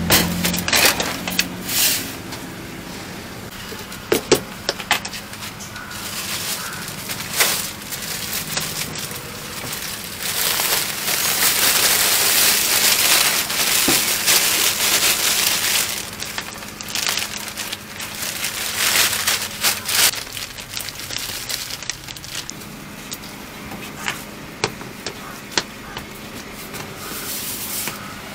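Plastic bag rustling and crinkling as hands work inside it, loudest in the middle, with scattered knocks and clatter of plastic tubs handled on a steel counter. A steady low hum runs underneath.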